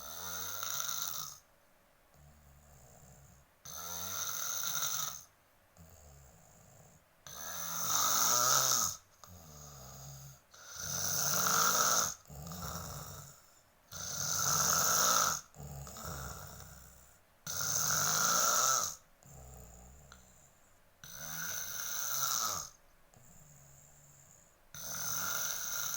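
A person snoring loudly: eight long snores, about one every three and a half seconds, with quieter breaths between them. The snore sounds like a revving motorbike or a lion's roar.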